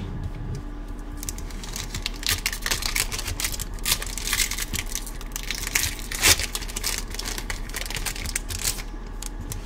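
Foil wrapper of a Pokémon trading card booster pack being peeled and torn open by hand: a dense run of crinkles and crackles, busiest in the middle, with one louder crack about six seconds in.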